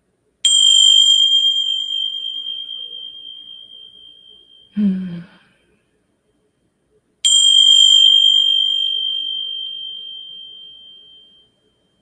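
Tingsha, Tibetan hand cymbals, struck together twice about seven seconds apart; each strike gives a bright, high, single-pitched ring that fades slowly over four or five seconds.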